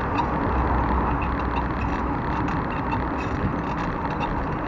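Steady rushing of wind and street traffic heard while cycling through town, with faint regular high ticks.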